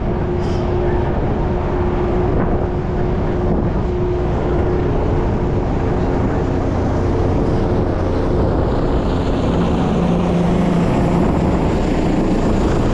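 Ferry engine running steadily underway: a loud, even mechanical hum with a few held low tones.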